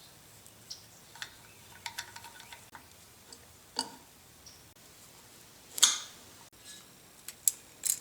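Hands working with small parts and tools: a scatter of light clicks and taps, with a louder brief scrape about six seconds in and two more sharp clicks near the end.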